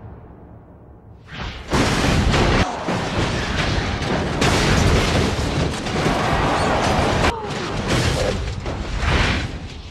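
Stock cars crashing and tumbling. A heavy crash comes in about two seconds in and is followed by a continuous run of loud crashing impacts and booms, with a short dip near the end.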